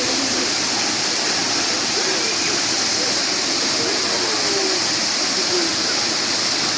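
Waterfall pouring, a loud, even rush of falling water that holds steady throughout, with faint voices of people under it.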